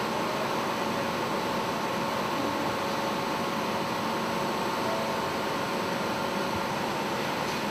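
Steady industrial plant machinery noise: an even drone with a few faint steady tones and no change in level.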